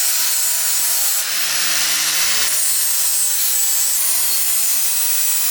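A grinder grinding a point onto a metal rod for a pole-lathe centre: a loud, steady grinding hiss over a motor hum whose pitch shifts slightly a few times as the rod is worked against it.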